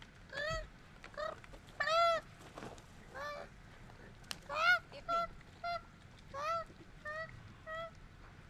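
Burned koala crying out in distress: about a dozen short, high, arching wails in a broken string, the loudest about halfway through.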